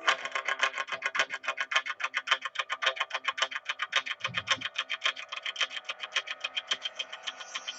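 Intro music: a fast, even run of ticking, plucked-sounding notes, about ten a second, over held tones. Near the end it gives way to fuller electronic music.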